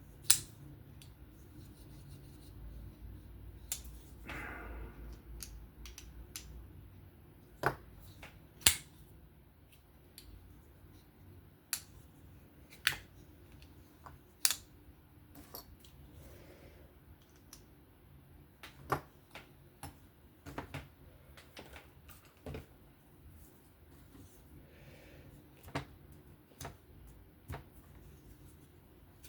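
Scattered sharp clicks and taps, irregular and a second or more apart, from a folding knife's small metal parts and a screwdriver being handled and set down on a work surface during reassembly.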